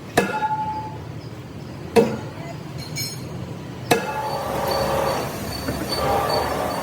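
Three hard hammer blows on steel, about two seconds apart, each with a short metallic ring, followed by a steady scraping noise.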